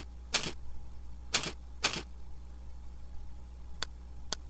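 A few separate keystrokes on a computer keyboard, irregularly spaced, then a couple of lighter clicks near the end, over a low steady electrical hum.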